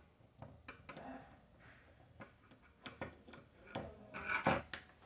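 Hands handling a small fuse and its wire leads on a workbench: light clicks, taps and rubbing, with a few louder taps about four seconds in.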